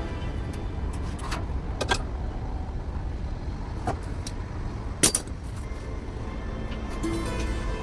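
A low, steady engine rumble with several sharp clicks and knocks over it, the loudest about five seconds in.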